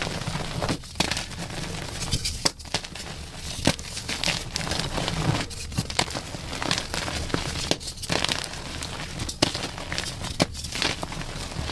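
Chalk being crushed and crumbled, a dense run of crunchy crackles broken by short pauses every second or two.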